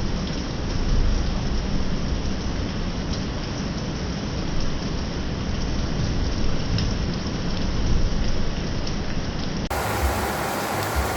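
Heavy rain pouring steadily, with a low rumble from strong wind and a few sharper ticks of drops striking close by. Near the end the sound changes abruptly to a brighter, hissier rain.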